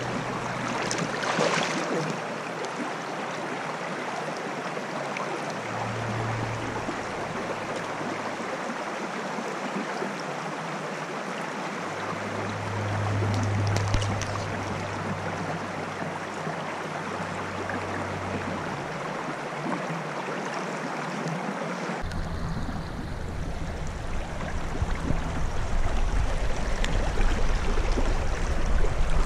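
Shallow stream rushing over rocks close to the microphone, with a brief splash about a second in as a salmon is handled in the water. About two-thirds through the sound changes to a heavier, deeper rush that grows louder toward the end.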